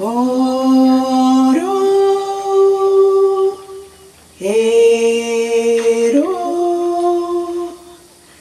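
A woman singing unaccompanied, with no words: two long phrases of held notes, each stepping up to a higher note partway through.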